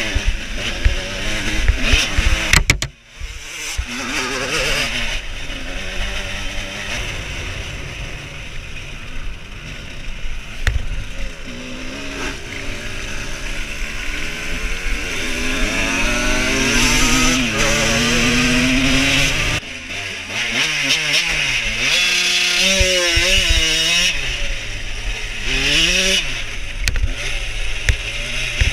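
1989 Yamaha YZ125 single-cylinder two-stroke engine ridden hard off-road, heard close from on board the bike. Its revs repeatedly climb and drop as the rider accelerates and changes gear.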